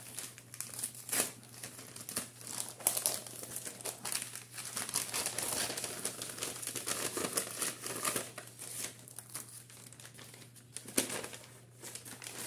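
Packaging of a small gift parcel crinkling and rustling as it is unwrapped by hand, irregular and busiest in the middle, with a few sharper crackles.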